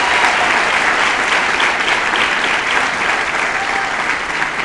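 Audience applauding and cheering, a dense sustained clapping that begins to die down near the end.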